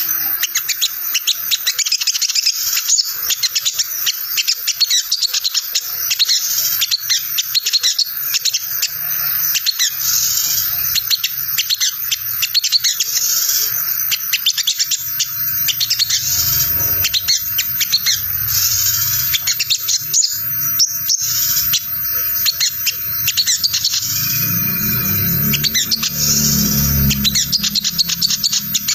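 Olive-backed sunbird (sogon) giving its rapid, continuous twittering "ngriwik" chatter, a tangled run of quick high chirps, used as a lure call to make other sunbirds answer. A low hum sits underneath, stronger near the end.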